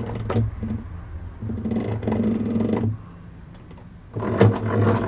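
Metal lathe being worked by hand, its slide and toolpost moving: a click near the start, then two short stretches of mechanical whirring, the second one ending with a few clicks.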